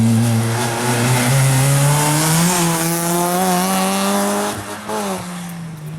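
Rally car engine under hard acceleration, its note climbing steadily for a few seconds. About four and a half seconds in the note drops sharply with a few short cracks, then carries on lower and fades as the car moves off.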